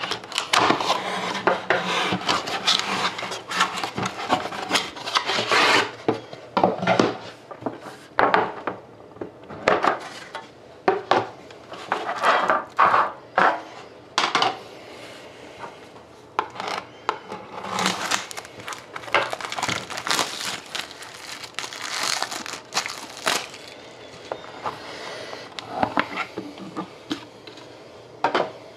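An Upper Deck hockey card box being unsealed and opened by hand: irregular rustling, scraping and rubbing of the wrapper and cardboard, in short bursts with brief pauses.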